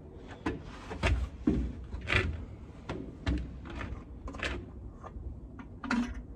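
Irregular clicks, knocks and rattles of hand handling, as an oil jug, its cap and a filler spout are worked at a combine's engine oil fill to add oil.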